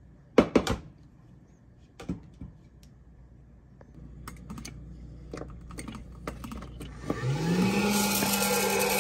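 A few sharp plastic clacks and clicks from handling the popper and its power plug. About seven seconds in, the Presto PopLite hot-air popper's motor starts: its hum rises in pitch and levels off as the fan comes up to speed, with a steady rush of air.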